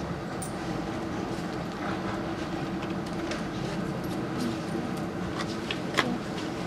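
1974 Von Roll funicular cars running on their track: a steady hum with scattered light clicks, and one sharp click near the end.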